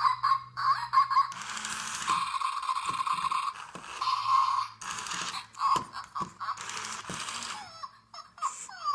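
Zhu Zhu Puppies robotic plush dog: its small electric motor whirring in stretches of a second or so as it drives about on a hard tile floor, broken by short electronic puppy yips and whines from its speaker.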